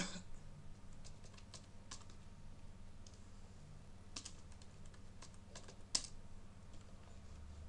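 Typing on a computer keyboard: irregular keystrokes, with sharper key strikes at the start and about six seconds in, over a low steady hum.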